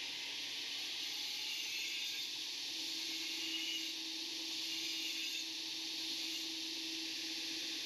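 2x72-inch belt sander running while the end of a stainless steel tube is held against the belt to deburr it: a steady grinding hiss, with a low steady hum joining in about three seconds in.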